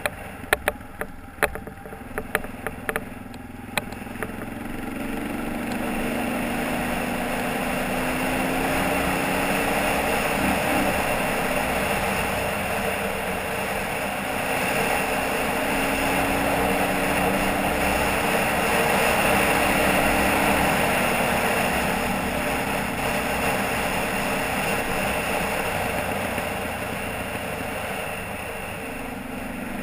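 ATV engine running as it rides along a dirt trail, its pitch rising and falling with the throttle over rolling road noise. Sharp clicks and knocks sound in the first few seconds.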